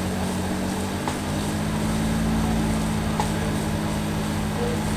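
A steady low mechanical hum with a faint rumble, its tone stepping up slightly about a second in. Over it come a few faint taps of a wooden spatula stirring rice in a frying pan.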